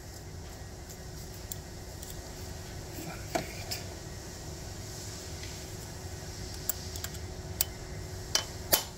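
Sharp metal taps, a few light ones and then two louder knocks near the end: a hammer striking a bearing driver to seat a pilot needle bearing.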